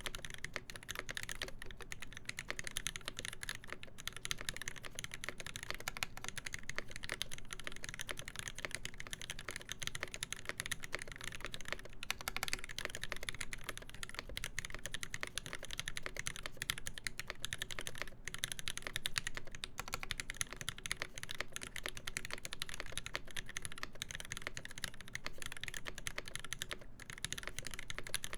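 Fast, continuous typing on a KBD8X MKII mechanical keyboard: lubed Alpaca linear switches with 62 g springs and switch films in a full brass plate, under GMK keycaps. Dense keystroke clicks with only a few brief pauses.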